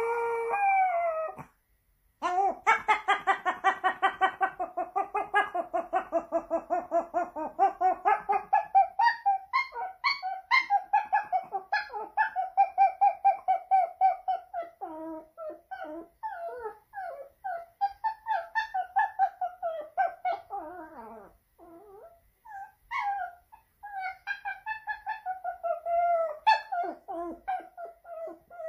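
Pomeranian howling for attention: long, wavering howls with a fast pulsing wobble, breaking in the second half into shorter, gliding yelps and whimpery wails. There is a brief pause about a second and a half in and another after about twenty seconds.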